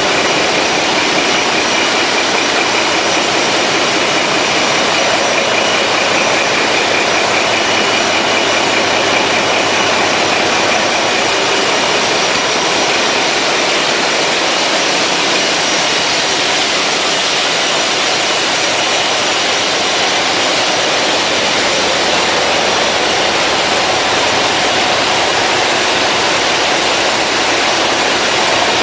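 Ship's Wärtsilä main diesel engine running under way, a loud, steady engine-room din with no change in pace.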